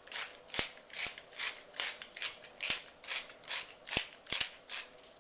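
Hand-twisted pepper mill grinding black peppercorns: a regular run of short gritty crunching rasps, about two and a half a second, as the grinder is turned back and forth.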